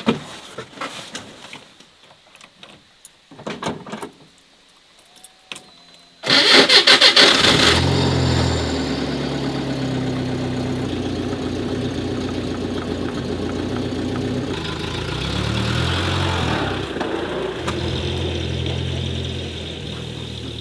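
A few soft clicks and knocks, then about six seconds in a UAZ-452 van's engine is started, catching with a short loud burst of revs before settling into a steady idle. The engine note shifts up and back down for a couple of seconds later on.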